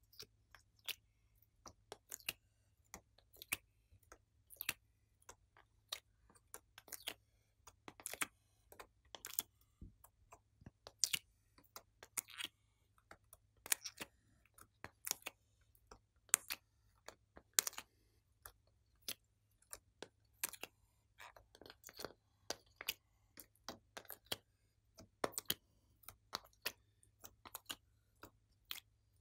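Irregular sharp clicks and taps, about one or two a second, as coloured clay cubes are pushed out of a plastic ice-cube mould and set down on a plastic tray.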